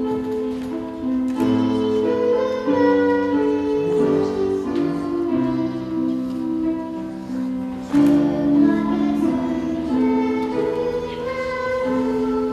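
Slow music of long held chords, with a melody moving above them and new notes struck every second or two.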